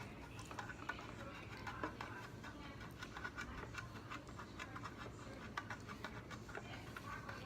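Faint, scattered light clicks and scrapes of a plastic toy blaster and its magazine being handled.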